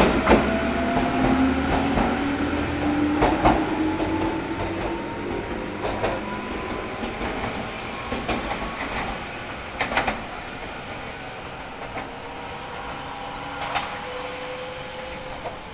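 Toyama Chiho Railway 14760 series electric train pulling away. Its Toyo Denki TDK-8205A self-ventilated traction motors whine, rising steadily in pitch as it accelerates and growing fainter, and a few wheel clacks over rail joints are heard.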